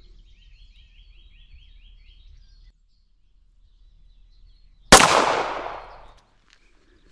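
Birdsong, a quick run of repeated short notes, for the first two and a half seconds, then the sound drops out. About five seconds in, a sudden loud bang that dies away over about a second.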